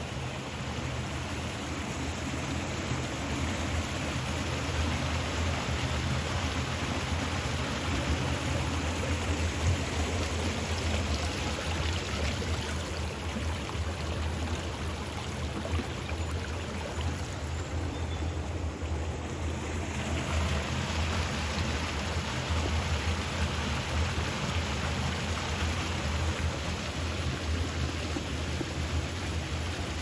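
Shallow stream running fast over stones in a narrow grassy channel: a steady, unbroken rush of water.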